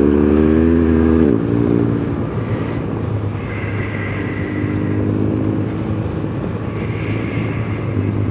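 BMW GS adventure motorcycle riding on a loose gravel track. The engine revs climb and then drop off sharply about a second in, then it pulls steadily again from about three and a half seconds, over constant rumble and wind noise.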